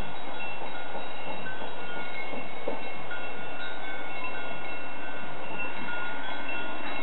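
Bells on grazing livestock tinkling continuously, many clear notes of several pitches overlapping, over a steady hiss of wind.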